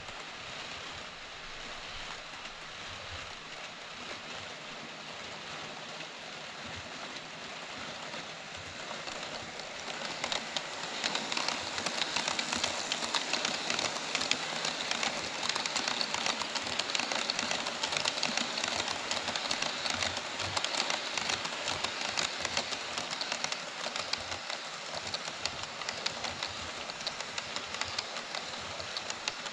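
HO scale model freight train running on Kato Unitrack, its wheels clicking fast and steadily over the rail joints as the locomotive and wagons roll by. Quieter at first, it gets louder about ten seconds in as the train passes close.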